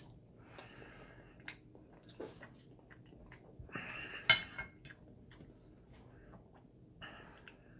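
Soft chewing and mouth sounds of someone eating French toast, with scattered light clicks. About four seconds in, a metal fork clinks sharply against a plate.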